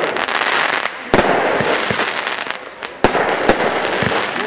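Hestia Gothic Fire firework going off: a continuous rush of shots and bursts with many small cracks, and two sharp bangs about one and three seconds in.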